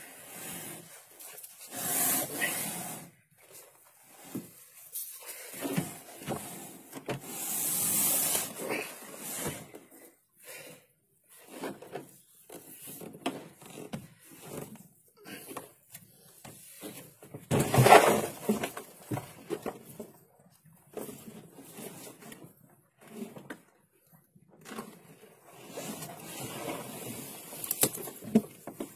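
Irregular scuffing and knocking of a landed marlin being handled on a small boat's deck, with longer scraping bursts about two and eight seconds in and the loudest knock about eighteen seconds in.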